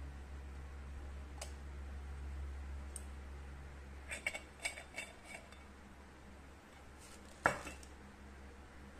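Stainless steel moka pot parts clicking and clinking against each other as they are handled and taken apart: a quick run of light metallic clicks about four to five seconds in, then one sharper clink with a brief ring near the end, over a steady low hum.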